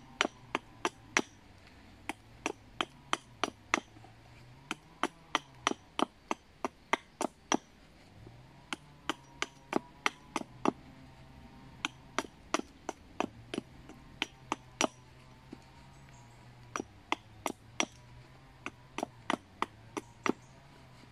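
Short, light axe strokes chopping into the end of a hazel stick on a log chopping block, a sharp chop about two to three times a second in runs with brief pauses. The axe is taking away the shoulders to taper the leg's end into a peg for the seat.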